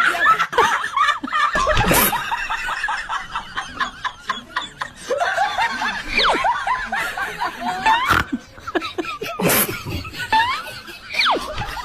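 A person laughing in a run of short, pitch-sliding bursts, with a few sharp knocks or clicks: one about two seconds in and two more in the back half.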